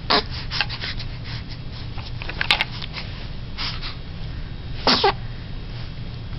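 A baby sneezes: one sharp breathy burst about five seconds in that drops in pitch as it ends. Several short, softer breathy sounds come before it, over a steady low hum.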